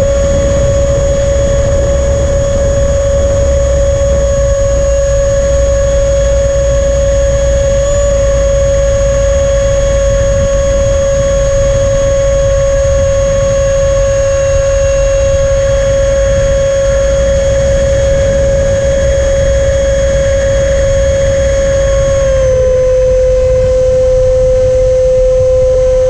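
The 64 mm electric ducted fan of a Freewing Stinger RC jet, on 4S power, whines at a steady pitch at cruise throttle, with airflow rumbling over the onboard microphone. Near the end the whine drops slightly in pitch as the throttle eases.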